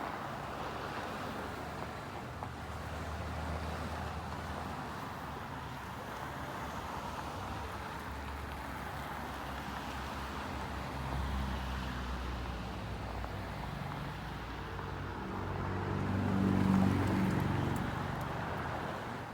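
Downtown street traffic: a steady hum of passing cars, with one vehicle's engine growing louder and passing close near the end.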